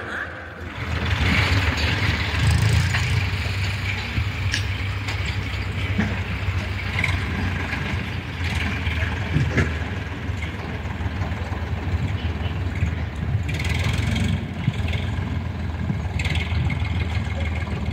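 Diesel tractor engine running steadily with a low, even hum while it backs a trolley loaded with soil.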